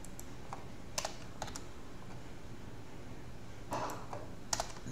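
A few scattered clicks of computer keys being pressed, in small clusters about a second in and again near the end, over a faint steady low hum.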